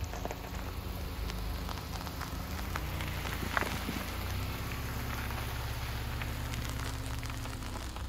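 A car's tyres rolling slowly over loose gravel and dirt, crunching and crackling with small popping stones, one sharper crack about halfway through. A low, steady engine hum runs beneath the crunch.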